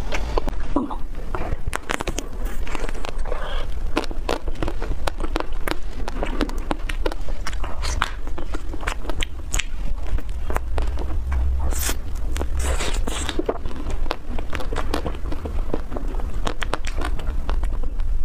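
Close-miked eating sounds: wet mouth clicks and chewing, then bites into a pink-coated ice cream bar, its shell crackling and crunching.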